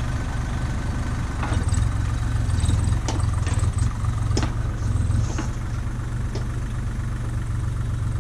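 Backhoe's diesel engine running steadily with a low hum, with a few short sharp clicks or knocks over it.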